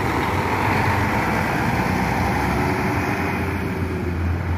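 Double-decker coach's diesel engine running as the coach pulls away and drives off, with a steady low hum under a rushing engine and road noise.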